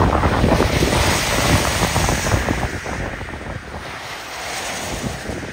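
Strong gusty storm wind buffeting the microphone and rushing through coastal shrubs and trees, loudest for the first three seconds and then easing.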